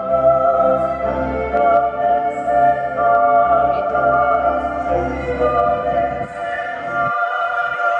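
Music from a light-and-sound show's soundtrack: slow music of long held notes. The deep bass drops out about seven seconds in.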